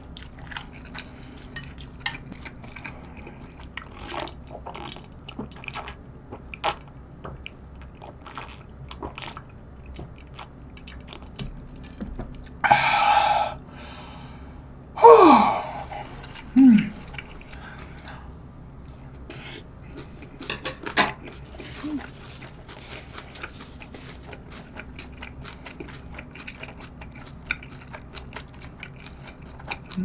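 Close-up eating sounds of cold spicy jjamppong noodle soup: chewing and light clicks of chopsticks against the bowl. About halfway through come two loud slurps from the bowl, each followed by a short falling sigh.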